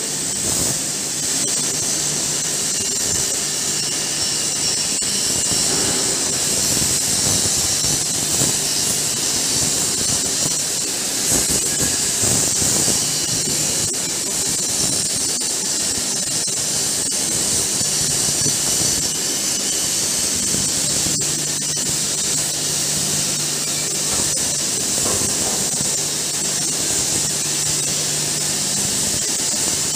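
Tumblast shot-blasting machine running: a steady hiss with a low hum under it and a few sharp clanks.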